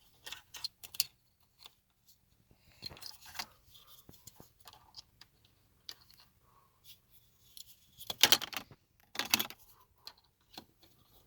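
Small plastic clicks and rattles of console switches and wiring plugs being handled and checked, with two louder scraping rustles about eight and nine seconds in.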